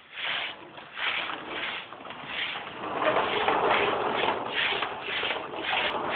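Baby walker rolling fast across a hard floor, with rhythmic scuffing about twice a second that grows busier about halfway through.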